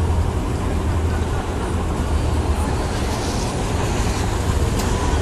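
Steady low rumble under an even hiss: the general background noise of an outdoor fairground.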